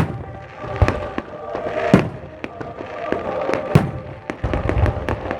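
Fireworks going off: loud bangs at the start and about one, two and nearly four seconds in, with quicker crackling reports in between.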